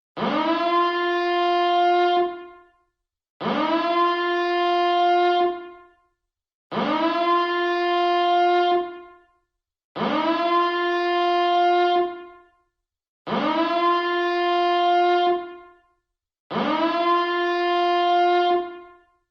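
Reactor alarm siren, a generated sound, sounding in six repeated blasts: each sweeps quickly up to a steady, buzzy note, holds it for about two seconds, then fades out, with a short silence before the next.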